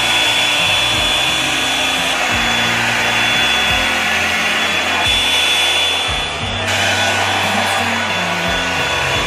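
Hot-air blow-dry brush running steadily, blowing hot air with a steady high motor whine as it is drawn through long hair.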